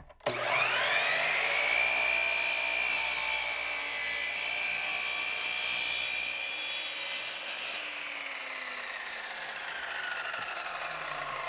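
Chicago Electric miter saw motor starting with a rising whine and settling at full speed, its blade cutting through 1/4-inch Baltic birch plywood. About eight seconds in the trigger is released and the saw winds down with a falling whine.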